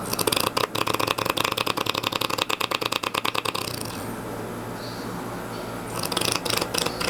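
Rattling snore that sounds like a motorcycle engine, a rapid stutter lasting about three and a half seconds, followed by a quieter breath, with the next rattling snore starting about six seconds in.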